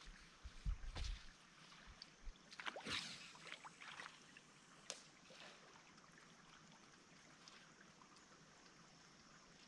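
A quiet stretch with a faint steady hiss of water. About three seconds in, a brief swish as a fishing rod is cast, followed by a few small clicks from the reel.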